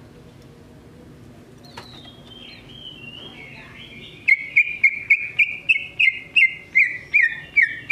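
Green leafbird (cucak ijo) singing: a falling, warbling whistle, then a loud fast run of sharp repeated notes, about three a second, each dropping slightly in pitch.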